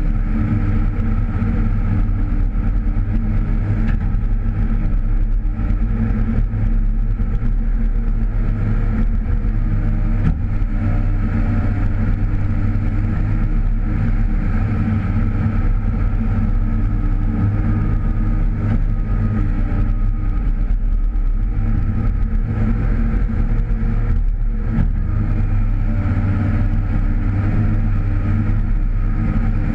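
Komatsu PC308 excavator's diesel engine running steadily, heard from the cab, its note wavering slightly now and then.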